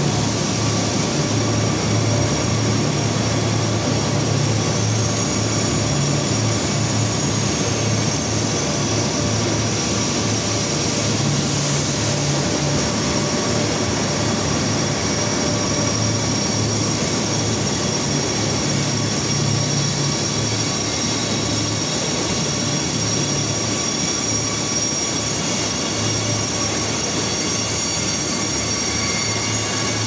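Hot rolling mill running: a loud, steady industrial drone from the roll stands and their drives as red-hot steel bar passes through, with a low hum and a thin high whine.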